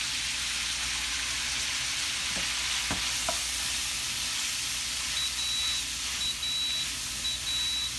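A stir-fry of vegetables and leftover steak sizzling steadily in a pan, with a few light taps of a utensil. About five seconds in, a high electronic beep starts repeating in short pulses, a rice cooker signalling that the rice is done.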